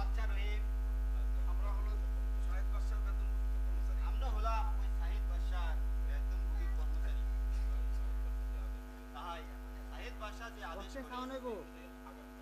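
Loud steady electrical mains hum, a low drone with a buzz of higher overtones, which drops in level about nine seconds in. Faint voices come and go over it.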